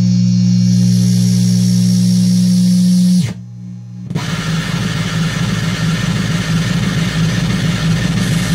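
Two chained Sound of Shadows v3 delay modules making a dark synthesizer drone. The steady low drone slides down in pitch and drops away about three seconds in. Within a second it comes back as a noisier, gently pulsing drone with hiss.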